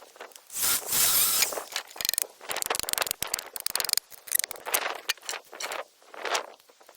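Scraping and rustling handling noises: one loud scrape lasting about a second, shortly after the start, then a run of small clicks and crackles and a few shorter scrapes.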